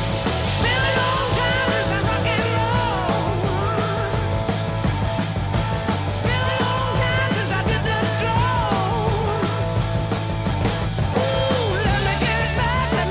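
Background rock song with a singing voice over a steady drum beat and bass, the sung lines coming in phrases a few seconds long.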